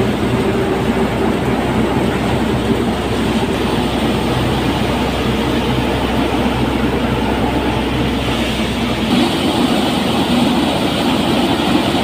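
Tractor-driven paddy threshing machine running steadily while threshing rice, a loud, continuous mechanical noise of the drum with the tractor engine under it. The deep hum underneath drops away about nine seconds in.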